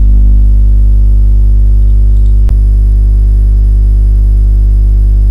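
Loud, steady electrical hum with a deep buzz, unchanging throughout, broken by one sharp click about two and a half seconds in.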